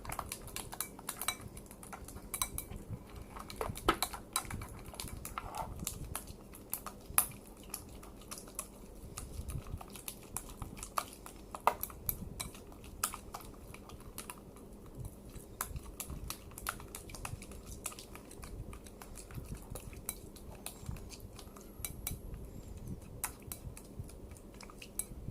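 A utensil stirring and scraping thick, stiff slime in a bowl, with irregular clicks and taps against the bowl throughout.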